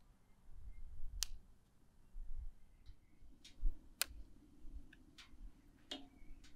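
Fresh bay leaves being snapped off a green sprig: about five or six sharp, separate clicks a second or so apart, over a low rumble.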